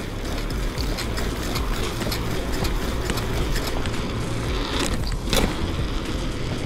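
Bicycle riding fast on an asphalt street: steady wind rumble on the microphone and tyre noise, with light clicks and rattles from the bike. About five seconds in, a sharp knock as the wheels go over a speed bump.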